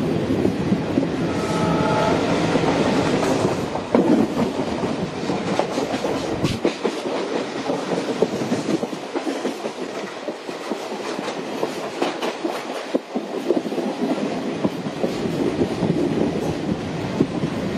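Train running along the track, wheels clattering over rail joints with a steady rumbling rush and scattered sharp knocks.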